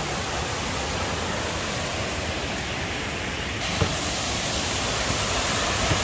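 Water rushing over the limestone cascades of Kuang Si Falls, a steady full rush with one short soft knock a little past halfway.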